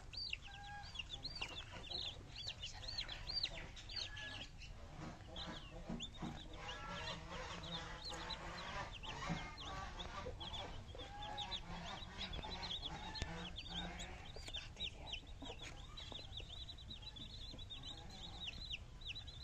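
Domestic chicks peeping, a steady stream of short high cheeps several a second, with some lower-pitched calls joining in through the middle stretch.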